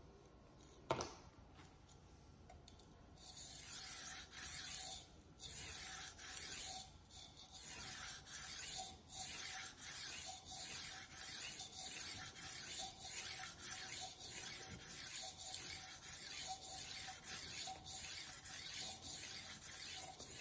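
Steel knife blade, held in a guided sharpener's clamp, stroked back and forth across a whetstone: a steady rhythmic scraping at a little over one stroke a second, starting about three seconds in. A single click about a second in.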